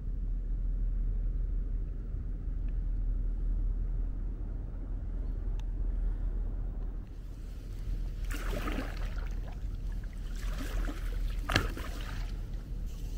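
Oru folding kayak being paddled over rocks, with a steady low wind rumble on the microphone; from about eight seconds in come a few short, sharp splashing and scraping noises from the paddle and the corrugated-plastic hull, the sharpest about a second and a half before the end.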